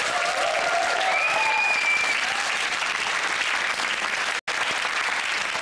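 Studio audience applauding steadily, with a few cheers over the clapping in the first two seconds. The sound cuts out for a split second a little over four seconds in.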